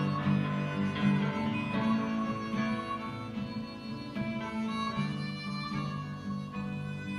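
Harmonica solo played with cupped hands, long held notes over acoustic guitar accompaniment.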